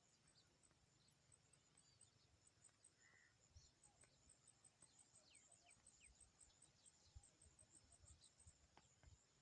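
Near silence with faint, rapid insect chirping in short repeated pulses, broken off now and then, and a few faint high chirps.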